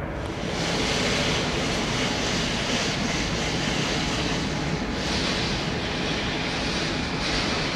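Airbus A330 jet engines running, a steady, dense roar with no distinct tone.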